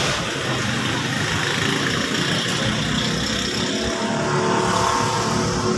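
A car running and moving, with steady engine and road noise.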